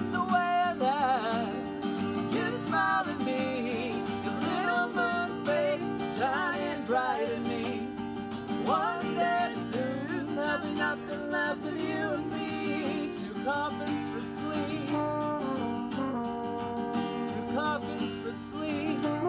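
Acoustic guitar strumming through an instrumental break of a folk song, with a wavering wordless melody line over it; a French horn comes in near the end.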